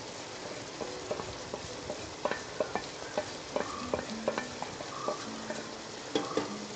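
A spoon clicking and scraping against a cooking pan as fried masala powder is stirred into chicken simmering in its own juices, over a steady sizzle. The clicks come irregularly, a few a second, from about a second in.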